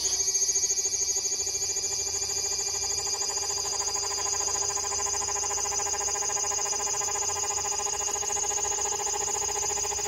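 Large brown cicada (Graptopsaltria nigrofuscata) singing: a loud, steady, unbroken buzz.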